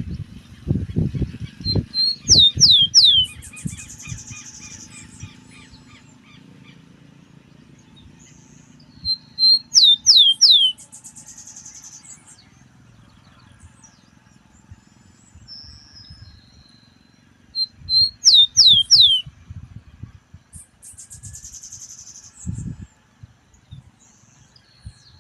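Rufous-collared sparrow singing its dawn song three times, about every seven or eight seconds. Each song is a couple of short high notes, three clear whistles sliding downward, then a brief buzzy trill.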